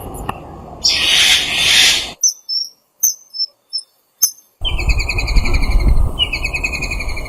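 Bird calls from different clips cut together: a harsh hissing screech about a second in, a few short chirps and clicks, then a fast rattling trill from a little past halfway.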